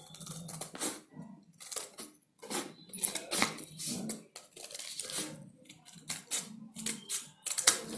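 Scissors snipping through folded chart paper: a string of short, irregularly spaced metallic snips.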